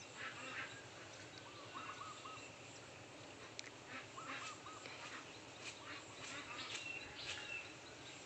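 Birds calling faintly: short notes in quick runs of three or four, heard twice, with scattered higher chirps.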